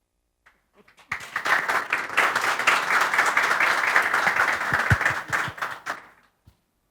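Audience applauding, starting about a second in, lasting about five seconds and tapering off near the end.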